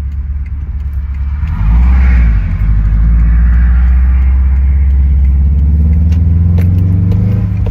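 Subaru WRX's turbocharged flat-four engine running as the car is driven. It gets louder about a second and a half in, then holds steady.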